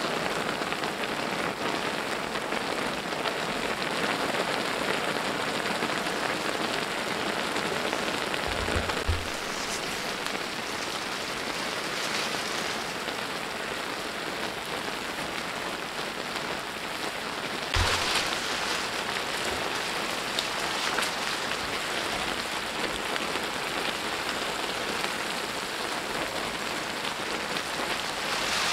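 Sichuan Chapagetti noodles and pork sizzling steadily in sauce in a wide black griddle pan, a dense, even crackle. Two brief knocks come about nine and eighteen seconds in.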